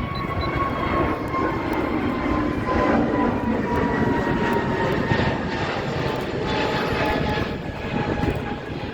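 Pegasus Airlines jet airliner departing under takeoff power: a steady engine roar, with a whine that slowly falls in pitch as the aircraft passes.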